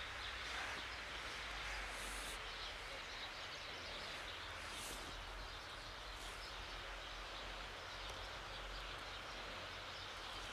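Steady outdoor background noise: a soft hiss over a low rumble, with a couple of brief soft rustles.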